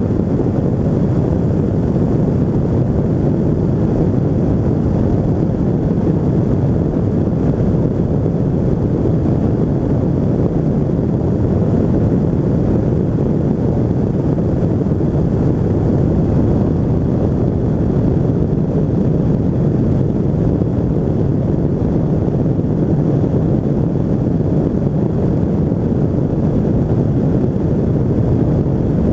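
Two-stroke Rotax 582 engine and pusher propeller of a Pegasus Quantum flexwing microlight running steadily in flight, mixed with wind rushing over the microphone.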